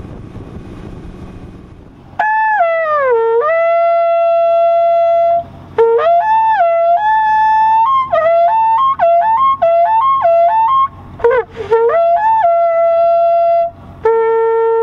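A long hunting horn blown in a series of loud blasts from about two seconds in, calling the hunting dogs back in. Each blast opens with a quick dip in pitch; some are held as long notes, others broken into short up-and-down notes, and the last is one steady low note. Before the horn, boat-motor and wind noise.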